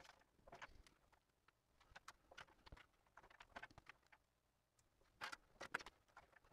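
Quiet scattered clicks and taps of a sheet-metal blank being set into a hand-operated box and pan brake and the brake being worked to fold an edge. Two louder metallic knocks come a little past five seconds in.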